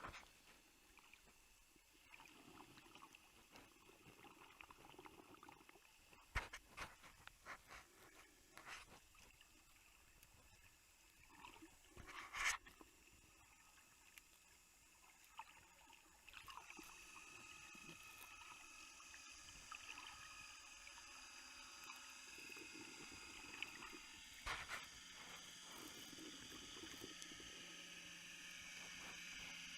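Faint water sounds with scattered clicks and knocks. About halfway through, a steadier hiss with a thin high whine sets in.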